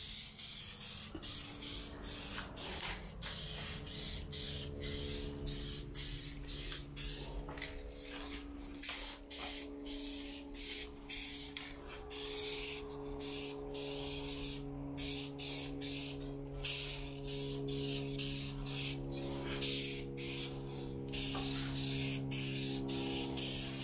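Spray nozzle hissing in many short, repeated bursts as a coat is sprayed on. Background music with held notes plays underneath.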